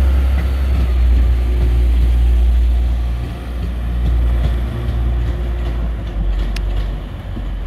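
Class 185 diesel multiple unit pulling away, its Cummins diesel engines giving a deep steady drone that eases off a little after about three seconds. A few sharp clicks come near the end.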